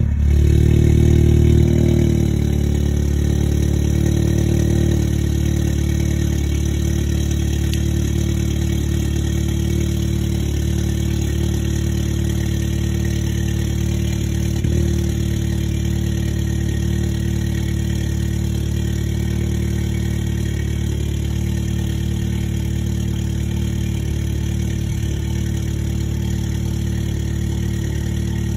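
Stage 2 tuned Mk7 Volkswagen Golf R's turbocharged 2.0-litre four-cylinder idling through an Akrapovic exhaust just after a cold start. It is a little louder for the first couple of seconds, then settles into a steady idle.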